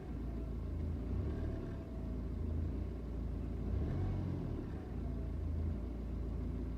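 BMW 320d's N47 four-cylinder turbodiesel idling unevenly, its pitch slowly rising and falling every second or two, which the owner takes for an idle misfire.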